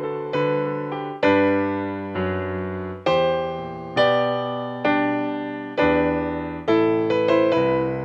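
Slow, gentle piano music, with chords and notes struck about once a second and each left to ring and fade.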